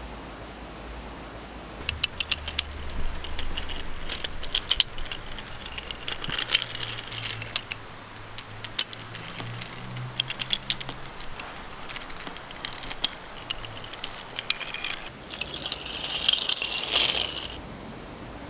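Wooden toy tank engine rolling along wooden toy track, its wheels clicking and rattling over the rails in irregular bursts from about two seconds in, with a denser rattle near the end.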